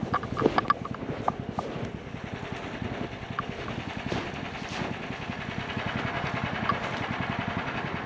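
Snowdog motorized tracked sled engine running steadily with a rapid, even low pulse.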